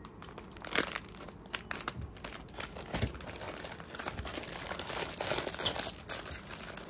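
Clear plastic packaging bags crinkling and rustling as bagged squishy toys are handled and packed into a cardboard box, in many small crackles that grow busier over the last few seconds.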